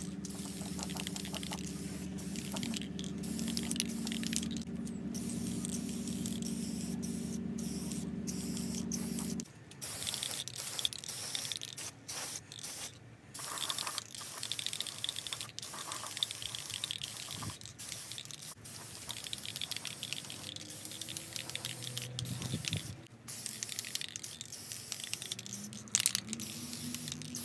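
Spray paint hissing in repeated bursts with short breaks, as gloss black is sprayed onto sheet-metal parts. A steady low hum runs underneath for the first nine seconds or so and stops suddenly.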